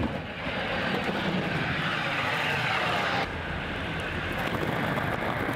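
Steady rushing engine noise, like a distant aircraft or traffic, that cuts off sharply about three seconds in and leaves a quieter background rumble.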